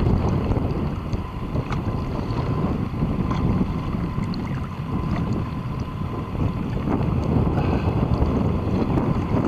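Boat under way, its motor running with a steady low rumble, and wind buffeting the microphone.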